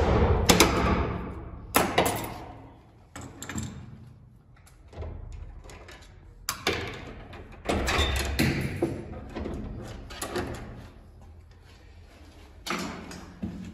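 Euro-profile door lock cylinder being wrenched with an adjustable spanner: sharp metal cracks and grinding in the first couple of seconds as the cylinder gives way. Then a screwdriver scrapes and clicks inside the broken cylinder housing, with a sharp knock near the end.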